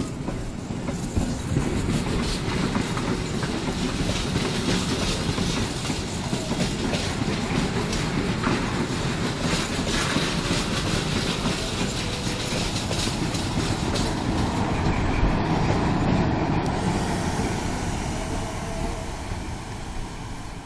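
BB304-class Krupp diesel-hydraulic shunting locomotive running along the next track, its engine rumbling and its wheels clattering over rail joints in a run of clicks. It grows loudest as it draws alongside, about three quarters of the way in, then starts to fade.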